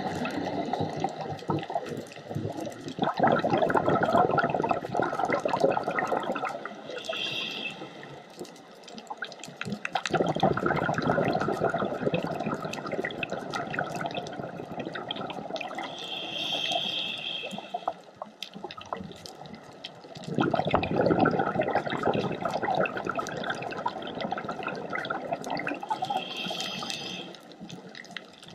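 Scuba diver breathing through a regulator underwater. A short hiss of inhalation alternates with a long rush of exhaled bubbles lasting several seconds, about one breath every ten seconds, with faint scattered clicks throughout.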